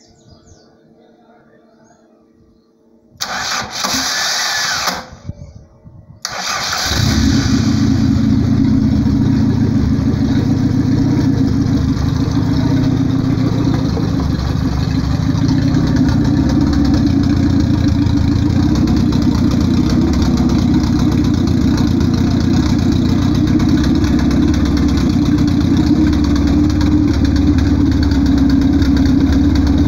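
Volkswagen AP 1.6 four-cylinder engine being started: the starter cranks for about two seconds from about three seconds in, cranks again briefly and the engine catches, then runs steadily on its freshly rebuilt carburettor.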